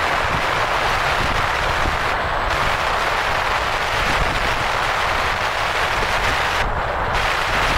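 Steady road noise from a car driving at speed: tyre roar and wind rush with a low rumble underneath. The hiss at the top briefly dulls twice.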